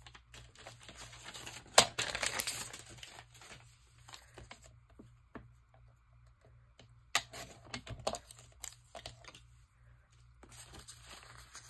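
Magazine paper rustling and sliding as pages are cut on a sliding paper trimmer. Sharp clicks come about two seconds in and about seven seconds in, the first followed by about a second of paper swishing.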